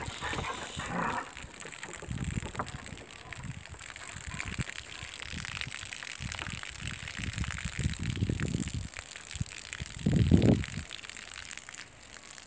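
Puppies at play, giving a few short low sounds, the loudest about ten seconds in.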